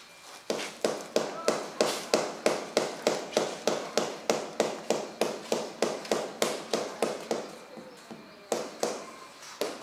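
Sharp, even tapping at about four strikes a second as floor tiles are knocked down into their bed while being laid; it stops for about a second near the end, then starts again.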